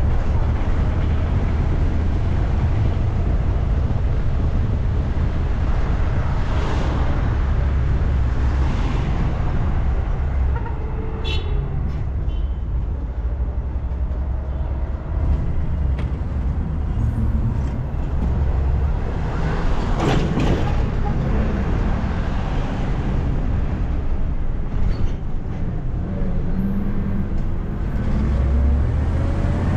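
Steady low engine rumble and road noise of a city minibus in traffic. There is a short run of high ticks about eleven seconds in and a brief rush of noise about twenty seconds in.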